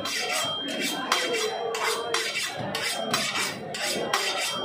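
Pangas catfish steak drawn against a boti's curved steel blade in quick, repeated scraping strokes, about two to three a second, as the fish is trimmed.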